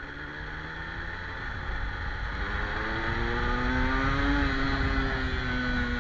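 Motorcycle engine pulling along in a low gear, its pitch rising steadily for a few seconds and then easing off slightly about four seconds in, over a low rumble of wind noise on the microphone.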